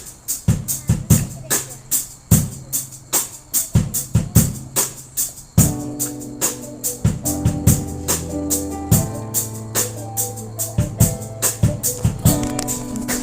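Live band playing the instrumental intro of a song: a steady drum and percussion beat of sharp, even hits with low drum thumps. About halfway through, pitched instruments come in with held chords.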